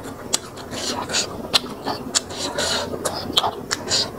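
Close-up eating sounds: wet chewing and lip smacks, with sharp mouth clicks about two or three times a second.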